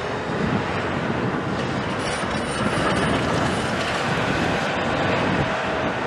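Caterpillar 374F L hydraulic excavator with a C15 ACERT diesel working a brick rubble pile: the engine runs under load amid steady metallic clanking and scraping, with some faint high squealing about two seconds in.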